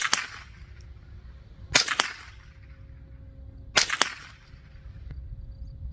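.22 LR rifle fired three times, about two seconds apart, each sharp crack followed a fraction of a second later by a second crack.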